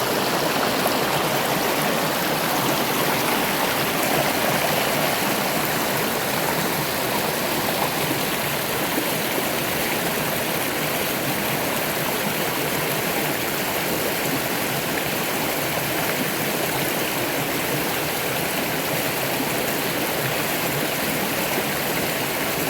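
River water flowing, a steady even rush that holds at the same level throughout.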